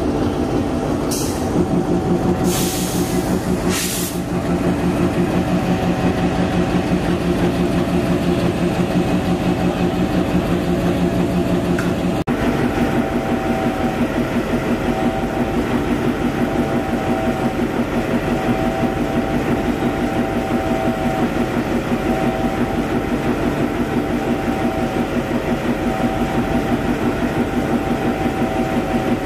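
Diesel locomotive engine running steadily at a constant pitch, with a few short hissing bursts in the first few seconds.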